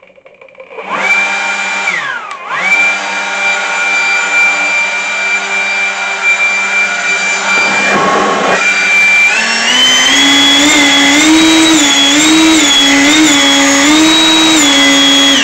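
Einhell GP-LB 18/200 Li E cordless leaf blower's brushless motor and axial fan spinning up about a second in and running with a loud, high whistling whine. It briefly dips and recovers, then a few seconds past the middle climbs to a higher, louder pitch that wavers up and down several times before dropping back at the end.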